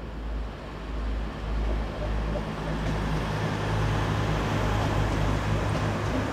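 A train running past, its low rumble and steady hum growing louder over the first three seconds, then holding.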